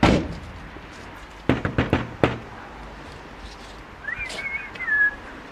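A van door slams shut, then a quick run of four or five sharp knocks follows, and near the end a short whistled tune.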